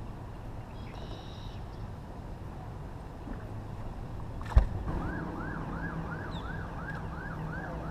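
A sharp knock about halfway through, then a siren wailing in quick rising-and-falling sweeps, about two to three a second, over a steady low hum.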